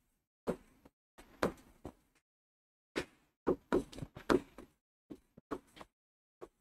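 Marker writing on a whiteboard: a string of short taps and scrapes as each letter is stroked on, with a pause of about a second a third of the way through.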